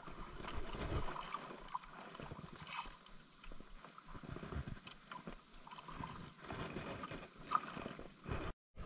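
Sea water lapping and sloshing against a small outrigger boat, with scattered light knocks.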